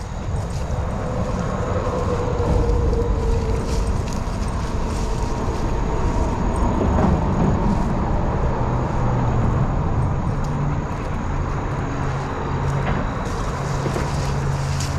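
Highway traffic passing overhead: a steady, loud rumble of vehicles, with a low engine hum coming in about halfway through.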